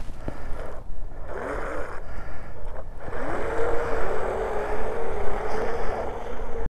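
PowerVision PowerDolphin water drone's two electric motors spinning up under the load of a towed bottle: short rising whines, then a steady whine from about halfway through, over the rush of water churned up by its wake. The sound cuts off suddenly near the end.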